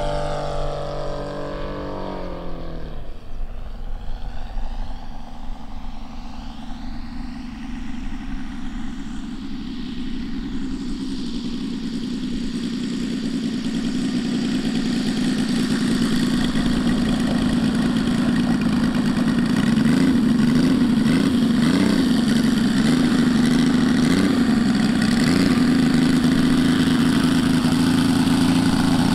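Engine of a 1/3-scale Sopwith Pup radio-controlled model biplane. Its pitch drops about two seconds in, then it runs at a low steady note that grows louder as the model comes in close on the ground.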